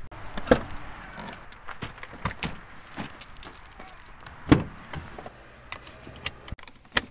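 Car handling sounds: doors and a tailgate clunking and latching, handles clicking and a seatbelt being pulled out and buckled, in a string of sharp clicks and knocks. The two loudest knocks come about halfway through and near the end.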